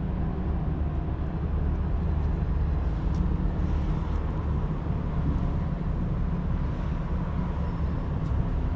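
Steady low outdoor rumble with a faint steady hum above it.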